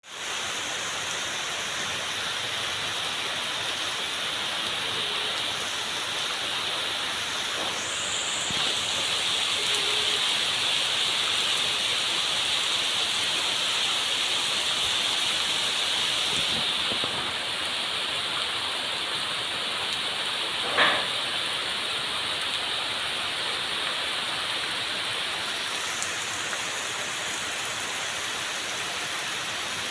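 Steady rain falling, an even hiss of many drops. A single brief knock or splash stands out about two-thirds of the way through.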